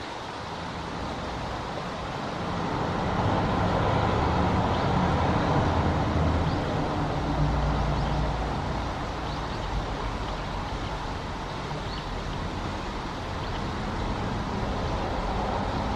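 Road traffic running steadily, with a motor vehicle's engine passing and loudest from about three to seven seconds in.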